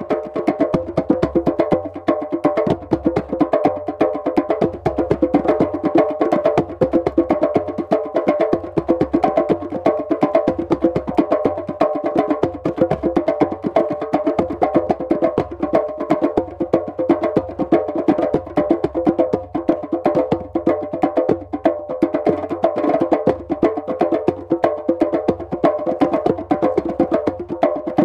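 Djembes played by hand in a fast, dense, steady drumming rhythm.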